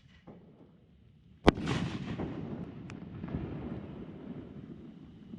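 A single sharp firework bang about one and a half seconds in, followed by a rumbling echo that slowly fades away.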